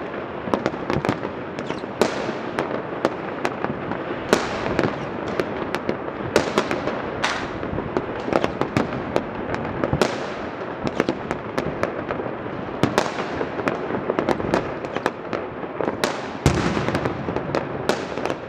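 Fireworks and firecrackers going off all over the city at once: a dense, unbroken crackle packed with sharp bangs. Every few seconds a louder bang stands out, its sound trailing away after it.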